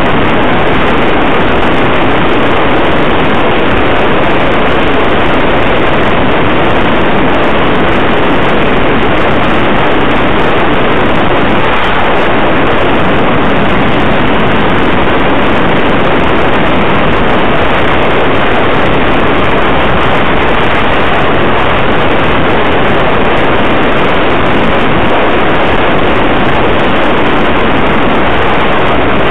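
Loud steady rush of wind and road noise on the camera of a moving motorcycle, with no distinct engine note or other event standing out.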